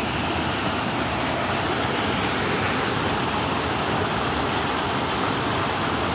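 Steady rushing water from the mini golf course's stream or waterfall feature, an even, unchanging hiss.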